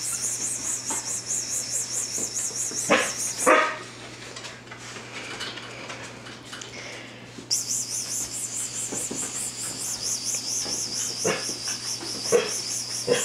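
Dalmatian puppies giving a few short yips and barks while a high, warbling call that wavers about four times a second is sounded to call them. The call breaks off for about four seconds in the middle.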